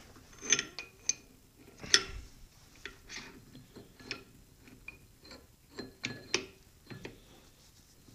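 Metal clicks and clinks as lathe change gears are handled and slid into mesh on the end gear train. The clicks come irregularly, several a second at times, and are loudest about half a second and two seconds in.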